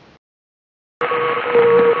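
Silence for about the first second, then a shortwave receiver recording: Morse code keyed as long dashes in a steady tone over radio hiss, with a second, higher Morse tone from another station underneath. It is the TTT safety signal sent by Genoa Radio (ICB).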